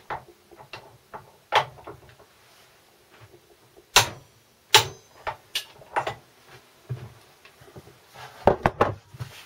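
A few sharp metal clinks and knocks of a steel socket tool being worked onto the mainshaft nut of a Land Rover Series 3 gearbox. The two loudest come about four and five seconds in, and a quick cluster follows near the end.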